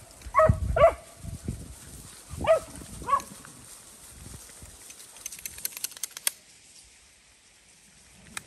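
A pack of dogs barking: four short barks in the first few seconds, then the barking stops.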